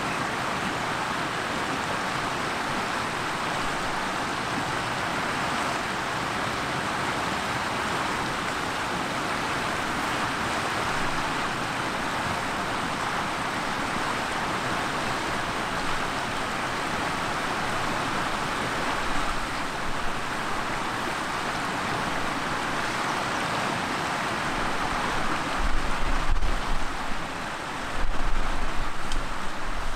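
Steady rushing of river water as elephants wade across the shallow Talek river. In the last few seconds there are uneven low rumbles.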